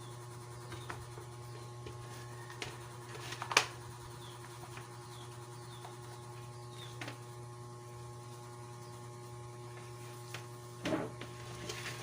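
Steady low electrical hum with scattered clicks and taps of parts being handled; the loudest is a sharp knock about three and a half seconds in.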